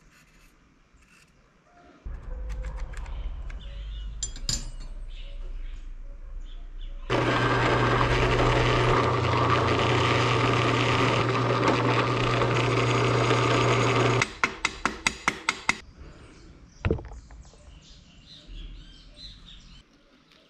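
Bench drill press boring into a wooden knife-handle block: a loud, steady machine sound over a low hum, starting abruptly about seven seconds in and stopping about seven seconds later. A quick run of clicks follows, then a single knock.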